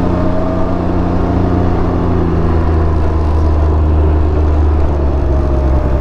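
Can-Am Ryker 900's three-cylinder engine running steadily while riding at low speed, its note shifting only slightly with the throttle.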